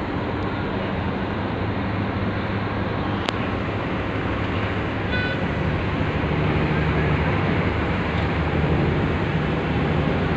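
Steady low engine drone over a constant harbour noise, with a sharp click about three seconds in and a brief high-pitched toot about five seconds in.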